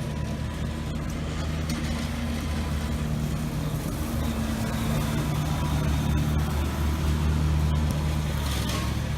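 Steady low hum of a motor vehicle engine running, growing slightly louder toward the middle.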